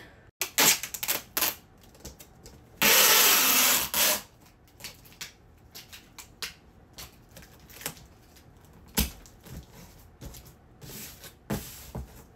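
Cardboard box being packed and closed by hand: fabric rustling and cardboard flaps being folded and pressed, with scattered clicks and knocks. About three seconds in comes a loud, even scraping noise lasting over a second.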